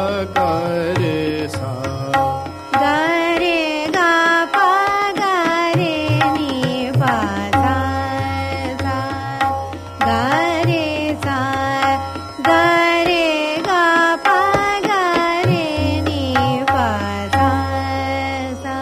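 Hindustani classical music in raag Hansdhwani: a continuous melodic line full of sliding, wavering ornaments over tabla accompaniment in teentaal.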